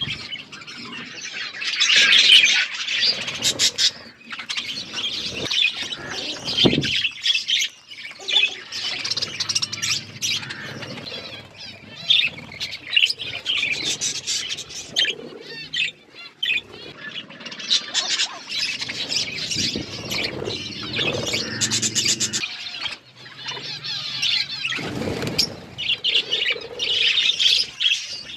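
A flock of budgerigars chattering continuously in overlapping warbles and chirps, with occasional wing flutters and sharp clicks.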